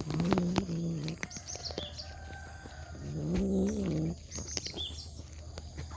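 Domestic cat vocalizing while it eats: two low, drawn-out calls of about a second each, one at the start and one about three seconds in, with small clicks between. The owner says she makes these sounds when she is eager to eat.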